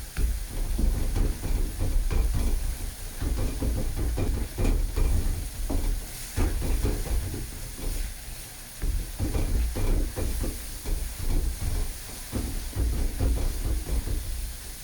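Spice paste frying in hot oil in a pan, sizzling with a steady hiss, while a spatula stirs it with frequent irregular scrapes and knocks against the pan.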